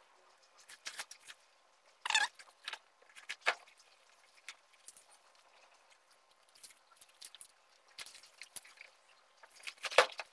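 Plastic packaging and bubble wrap crinkling and rustling as hands unwrap a package, in scattered crackles and clicks, with louder crackles about two seconds in and near the end.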